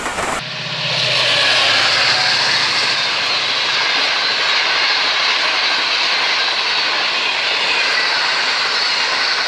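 Passenger train coaches rushing past at speed: a steady, hissing roar of wheels on rails. It cuts in abruptly about half a second in.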